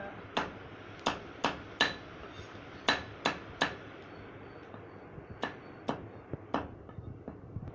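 Large knife chopping raw green mangoes on a round wooden log block: about ten sharp chops in three quick groups, with short pauses between.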